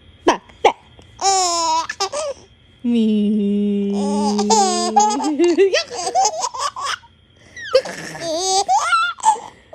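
A baby laughing in several bouts, with high squeals and babbling between.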